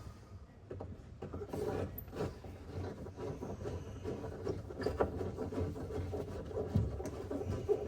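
Scattered rubbing, scraping and light clicks of hand work on car interior trim and fasteners, done with screwdrivers.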